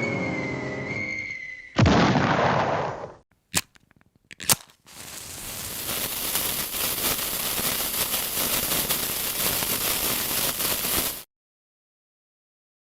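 A string of sound effects: a falling whistle ends in a loud explosion about two seconds in, like a dropped bomb. Two short clicks follow, then a steady hiss that swells up over several seconds and cuts off suddenly.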